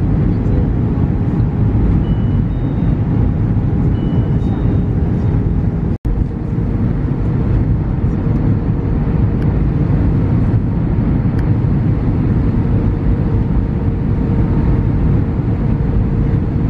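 Airliner cabin noise on descent: the steady roar of the jet engines and rushing air from a seat by the wing, with a steady hum under it. The sound drops out for an instant about six seconds in.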